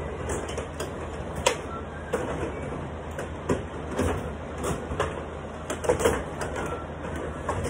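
Carrom bubble hockey table in play: a continuous rattle of the player rods being spun and slid, broken by sharp clacks of the puck against the players and the boards, the loudest a second or two apart.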